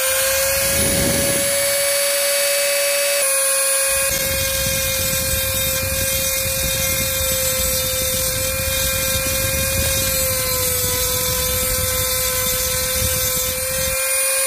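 Handheld rotary tool running at high speed with a steady whine. From about four seconds in, its bit grinds into the metal of an aluminium jig mold to engrave it, adding a rough grinding noise under the whine until near the end.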